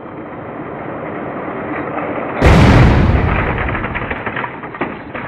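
Explosion sound effect over a head-on crash of two Lego trains: a noise swells steadily louder, then a sudden loud boom about two and a half seconds in dies away over a second or so into scattered crackling.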